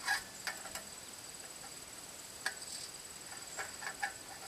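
Scattered light metallic clicks and taps of a stainless steel bolt against aluminium antenna tubing as it is fished through a cross-bolt hole. A steady high-pitched insect drone runs behind.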